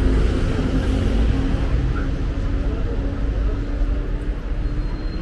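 Road traffic: a continuous low rumble of vehicle engines and tyres, with a steady engine hum running through it.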